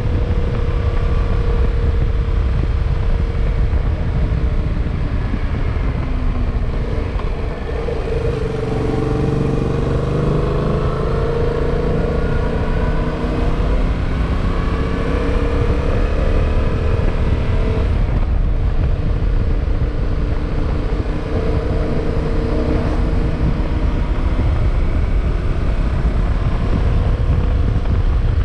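Yamaha motorcycle engine running on the move under a steady rush of wind on the microphone. The engine note rises and falls several times with the throttle partway through.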